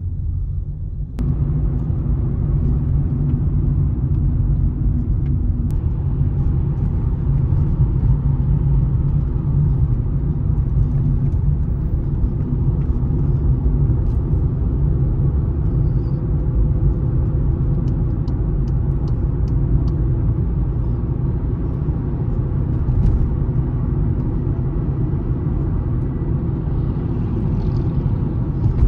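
Steady low rumble of road and engine noise inside a moving car's cabin, growing louder about a second in, with a few faint ticks around two-thirds of the way through.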